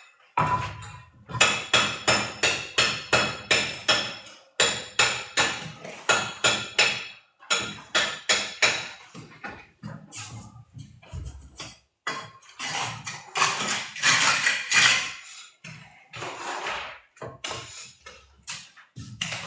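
Runs of rapid hammer blows, several a second, each with a short ringing tone, broken by brief pauses.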